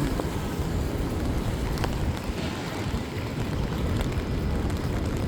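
Steady city street noise on a rainy day: a low rumble of traffic mixed with wind buffeting the phone's microphone.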